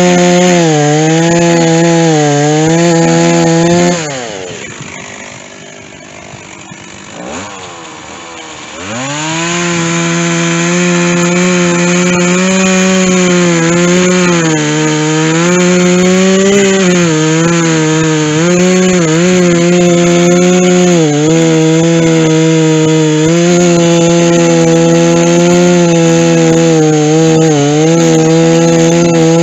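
Stihl chainsaw with a dull chain cutting through white oak, its engine note wavering as it loads in the wood. About four seconds in it drops to a low idle for roughly five seconds, then is throttled back up into the cut.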